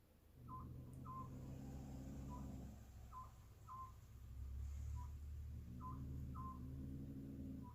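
A cat making short, high chirps, one or two a second at irregular spacing, the chirping a cat does while eyeing prey. A low, steady hum swells underneath twice, for about two seconds each time.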